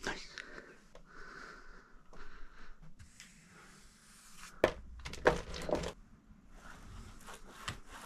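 A few sharp knocks and thumps in a small enclosed space, the loudest a cluster of three about five seconds in, with fainter ticks and rustling around them.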